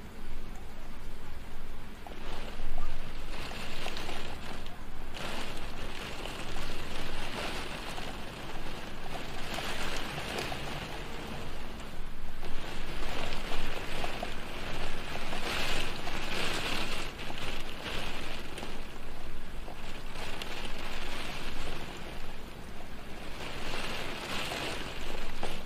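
Steady rain falling on a window, a dense hiss that swells and eases every few seconds.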